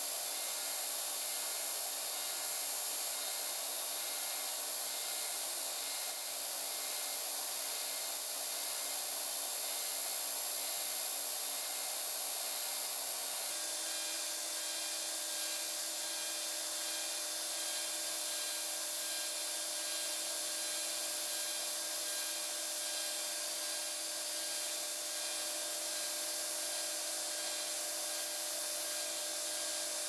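A power tool running steadily in a workshop: an even rushing noise with a faint hum, and a new lower hum joins about 13 seconds in.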